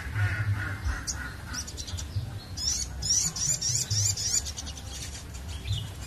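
Caged sunbird singing: a warbling phrase at the start, then a fast run of sharp, high rising chirps, about four or five a second, from about two and a half seconds in to past four seconds, over a low background rumble.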